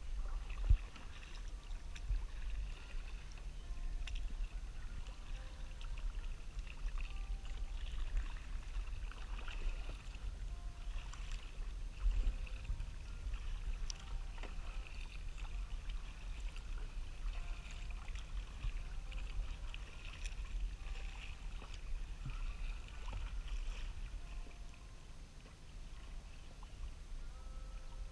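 Kayak paddle strokes dipping and splashing in choppy open water, over a steady low rumble. A sharp knock about a second in.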